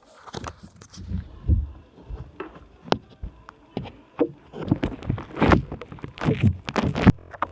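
Irregular bumps, knocks and rubbing from the camera being handled and turned, right at the microphone, with the heaviest thumps in the second half.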